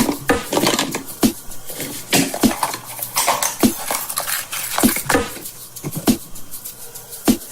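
Small plastic toys and containers being handled: a string of sharp clicks, taps and light knocks, with some rustling in between.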